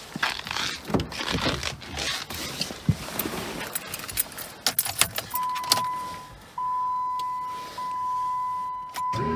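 Keys jangling, rustling and sharp clicks as the driver's door of a Jeep Patriot is opened and the driver gets in. From about five seconds in, the dash gives a steady electronic warning chime, one high tone broken by a few short gaps, as the ignition is switched on. A louder low sound begins right at the end.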